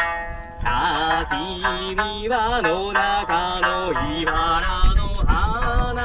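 A man singing a folk song and accompanying himself on a sanshin, the Okinawan three-stringed lute, with plucked notes. The voice comes in about half a second in and holds long, wavering notes over the plucking.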